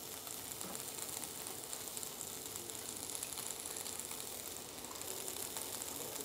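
Faint steady sizzle from a frying pan of onions and asparagus left cooking on a gas burner, with a few soft knife taps as lean beef steak is sliced on a plastic cutting board.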